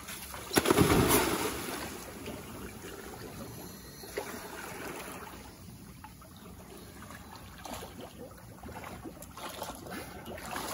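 A scuba diver in full gear entering the sea from a catamaran's stern with one loud splash about a second in, followed by steadier, quieter water sounds.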